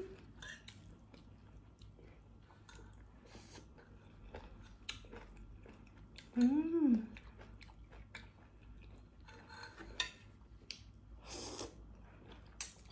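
A person eating instant noodles: chewing with wet mouth clicks and smacks, a short hummed vocal sound about six and a half seconds in, and a noodle slurp about eleven and a half seconds in.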